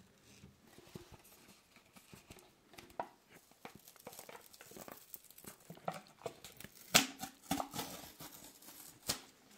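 Foil seal being peeled off the top of a Lay's chip canister close to the microphone: scattered crinkling and small ticks, with one loud sharp tearing snap about seven seconds in.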